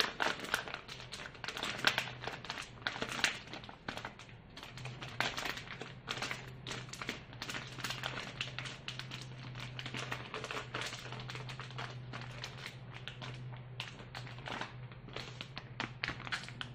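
Plastic flour packet crinkling and rustling as wheat flour is shaken out of it into a metal bowl, with many irregular crackles and light taps. A faint steady low hum runs underneath.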